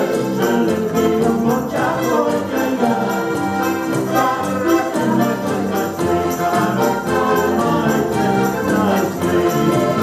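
Ensemble of button box accordions playing a tune together over a steady beat.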